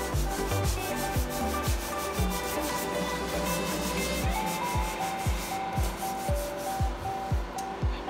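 Background music with a steady beat and held notes. Under it, a sponge rubs over a varnished wooden cabinet door coated in a baking-soda paste.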